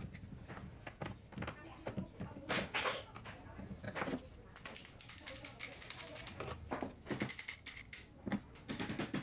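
Rusty saw chain being pulled off the guide bar of an old electric chainsaw: metal links clinking and rattling, with knocks from the bar being handled. Dense runs of rattling come about halfway through and again near the end.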